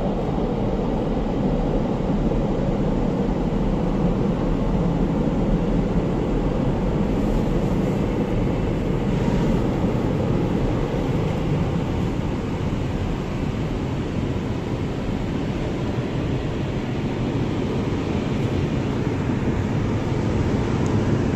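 Automatic car-wash rotating brushes scrubbing over the windshield and body with water spraying, a steady swishing wash noise muffled through the car's cabin.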